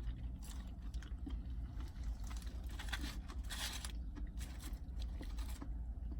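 A person chewing and handling a chicken burger, with soft rustles and crackles over a steady low rumble inside a car.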